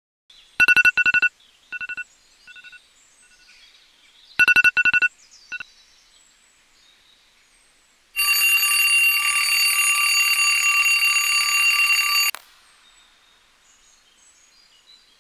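Ringing alarm: two bursts of rapid beeps, each trailed by fading echoes, then a continuous ringing for about four seconds that cuts off suddenly.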